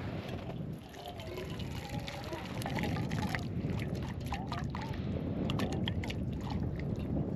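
Liquid being poured from one stainless steel camping pot into another, trickling and splashing, over wind rumbling on the microphone. A few light ticks come near the end.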